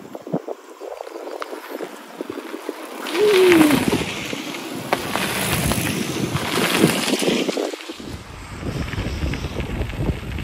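Mountain bike riding over a trail: wind on the microphone and the bike's rattling and clicking, louder from about three seconds in, with a short falling tone just after that.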